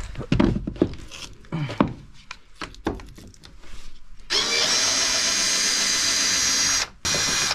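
Cordless drill-driver running steadily on a floor screw for about two and a half seconds. It stops for a moment and starts again near the end. A few knocks and clicks of the tool being handled come before it.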